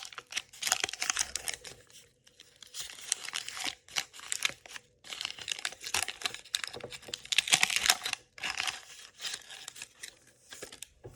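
Wax paper wrapper of a 1985 Topps baseball card pack being torn open and crinkled by hand, in several bursts of crackling with short pauses between.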